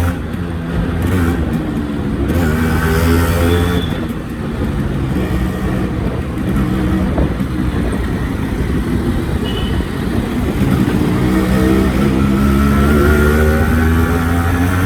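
Yamaha RX-series two-stroke single-cylinder motorcycle engine running and being revved, its pitch climbing steadily over the last few seconds.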